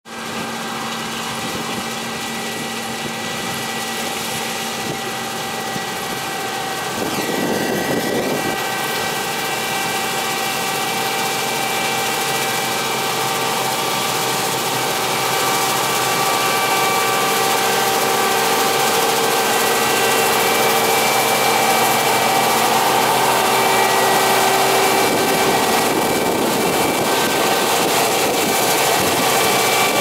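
International 1480 axial-flow combine harvesting soybeans: its diesel engine and threshing machinery running steadily, a hum with several whining tones. It grows louder as the combine draws nearer.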